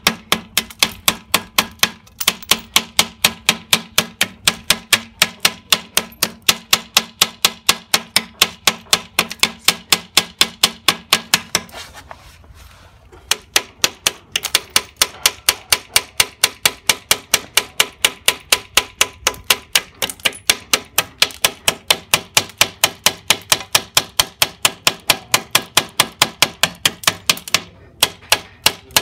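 Ball-ended metal rod tapping on scored glass in quick, even taps, about three a second, running the score lines so the glass breaks out around a cut circle. The tapping stops for about two seconds around twelve seconds in. A low steady hum underneath stops at the same moment.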